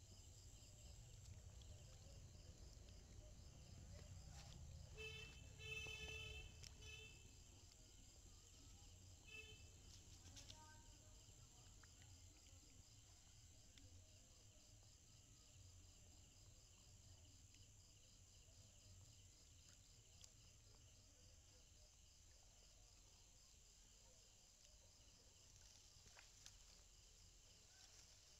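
Faint chorus of night insects, a steady high trill with an even pulse. Around five to seven seconds in, a short pulsing animal call sounds over it.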